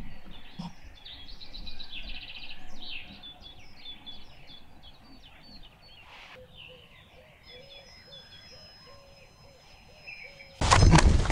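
Several songbirds singing, many short overlapping chirping phrases. Near the end a sudden loud burst of rustling and knocks close to the microphone cuts in.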